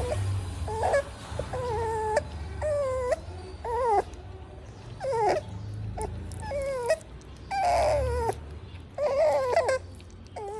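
Pug puppy whimpering and crying: a string of short, high whines about a second apart, each wavering in pitch.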